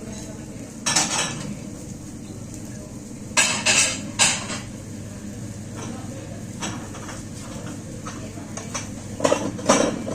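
Plates, pots and cutlery clattering and clinking in a few sharp bursts, with smaller clinks between, as dishes are washed by hand.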